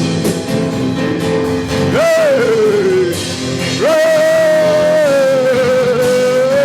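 Church worship music under prayer: sustained chords with a lead melody line that scoops up into long held notes and slides down between them.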